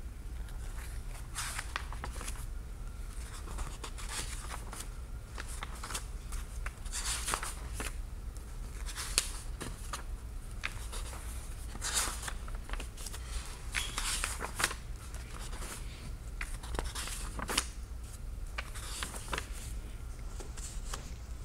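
Pages of a large book being handled and turned by hand: a string of short, dry paper rustles and crinkles, with a steady low hum underneath.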